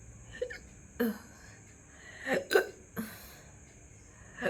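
A person hiccuping, short sharp hiccups coming every second or so, about four in all, the loudest a double hiccup a little past the middle.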